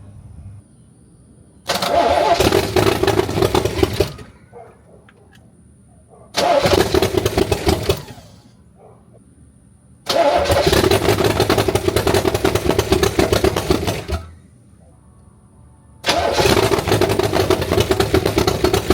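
Chevrolet Corvette C3's V8 engine started four times in a row, each time running loudly for about one and a half to four seconds and then cutting out. The engine will not stay running.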